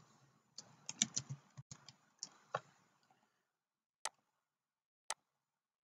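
Faint computer keyboard and mouse clicks: a quick run of clicks and key taps in the first half, then two single clicks about a second apart near the end.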